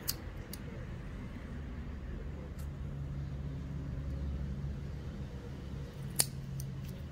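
A pet nail clipper snaps shut once on a cat's claw about six seconds in, a single sharp click, after a couple of fainter clicks in the first second. A steady low hum runs underneath.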